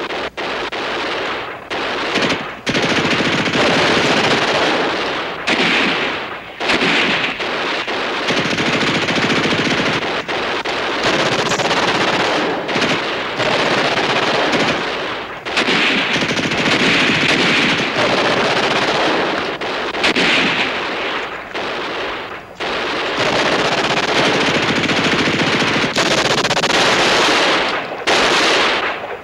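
Machine-gun fire in long, rapid bursts of a few seconds each, broken by short pauses.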